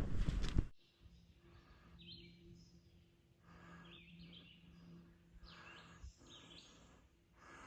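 A loud rush of wind on the microphone that cuts off suddenly under a second in, then woodland birds chirping in short scattered calls over a faint steady low hum.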